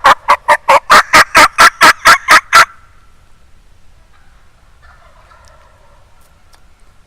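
Very loud, fast turkey gobble-like rattle, about six strokes a second, that cuts off abruptly under three seconds in; faint bird calls follow.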